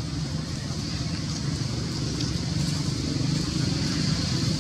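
Steady outdoor background noise: an even low rumble with a constant high hiss, and no distinct event.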